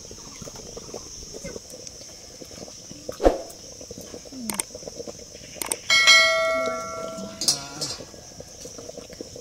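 Steel tableware knocked once about six seconds in, ringing out with a bright metallic tone that fades over about a second and a half, after a few lighter knocks of dishes and glasses.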